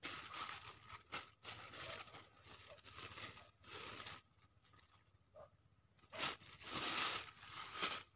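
Rustling, crinkling noise in two long stretches, the first lasting about four seconds and the second about two seconds near the end, with a short crackle between.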